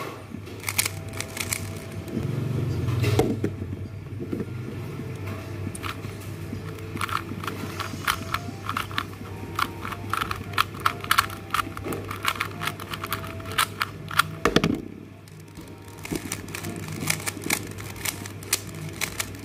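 Plastic 3x3 Rubik's cubes being turned by hand: quick runs of layer-turning clicks in irregular bursts, with one louder knock about two-thirds through, over a steady low hum.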